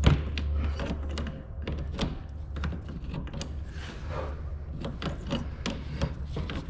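Wrench on a car's AC line fitting: a sharp metal clack right at the start as it seats, then scattered clicks and taps of the wrench against the fitting and nearby parts, over a steady low hum.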